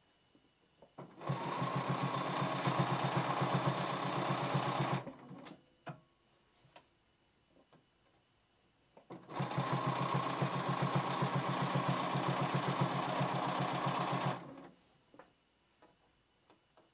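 Bernina B 780 computerized sewing machine stitching a double-fold hem in knit fabric, in two runs of about four and five seconds with a rapid, even stitch rhythm. A few faint clicks come between and after the runs.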